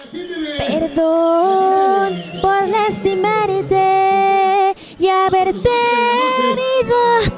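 A woman singing into a handheld microphone, holding long notes that waver slightly, with a short break about five seconds in.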